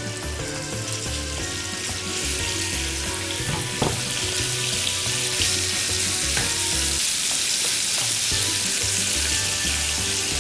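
Cubed raw meat searing in hot oil in a frying pan: a steady sizzle that grows louder about two seconds in as more meat goes in, with a wooden spatula stirring it. The meat is being given a quick high-heat sear.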